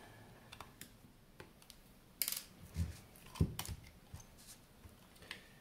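Scattered light clicks and knocks of a screwdriver and the metal case of a partly dismantled avionics display unit being handled, with two dull thumps about halfway through.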